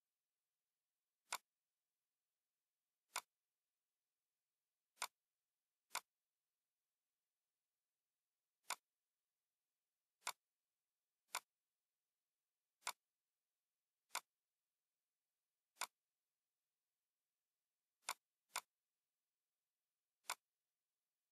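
Computer mouse clicking: thirteen single sharp clicks at irregular spacing, one to three seconds apart, two of them in quick succession near the end, with silence between.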